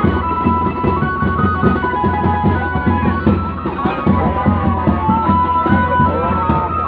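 Music with a fast drumbeat and a high melody of held notes stepping from pitch to pitch over a steady low drone.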